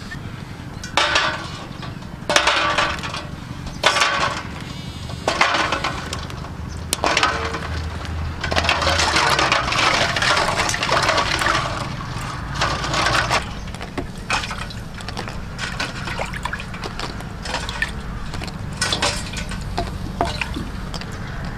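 Hands washing balut duck eggs in a steel bowl of water: water splashing and sloshing in irregular bursts as the eggs are rubbed, with light knocks of egg against egg and bowl.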